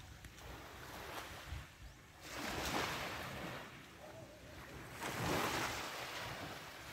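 Small waves breaking and washing up a sandy beach: a steady hiss of surf, with two waves swelling and fading, one about two seconds in and one about five seconds in.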